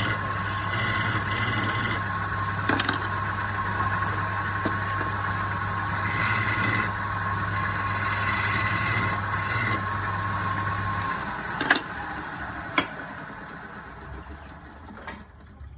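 Electric woodworking power tool running with a steady motor hum, with bursts of rasping as it is worked against the wood. The motor is switched off about eleven seconds in, followed by two sharp knocks.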